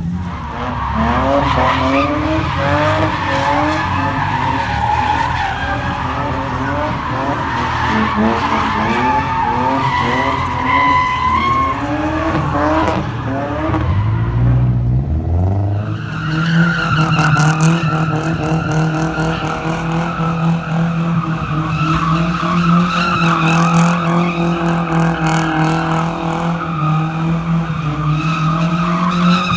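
A car engine revving hard with its tires squealing, as in a burnout or donuts. For the first half the revs swing up and down quickly; about halfway they dip, then hold steady and high.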